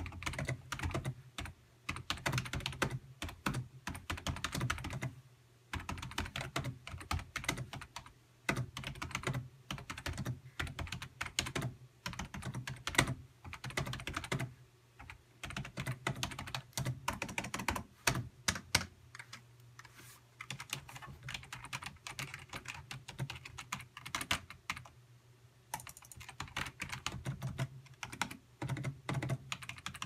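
Two-handed typing on a Razer DeathStalker gaming keyboard with low-profile chiclet membrane keys: a dense run of key clacks in bursts, with brief pauses a few times. The keys are not that loud compared to a mechanical keyboard. A low steady hum runs underneath.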